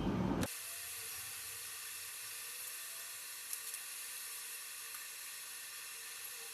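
Faint, steady hiss with a few faint ticks at the soldering bench while a cable plug is soldered under the microscope.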